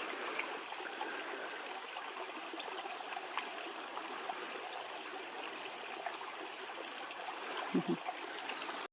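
Running water of a stream, a steady rushing trickle, with a brief voice sound just before the end; the sound cuts off suddenly.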